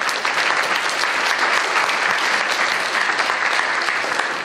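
Lecture-hall audience of students applauding steadily at the close of the lecture.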